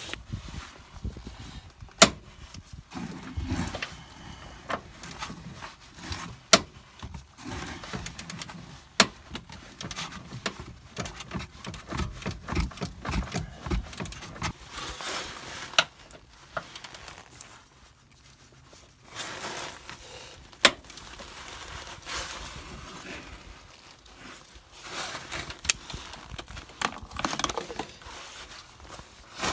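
Hand tools working on the steel lower suspension arm's bolts: sockets, a ratchet and a breaker bar. Scattered sharp metallic clinks and knocks come over shuffling and handling noise.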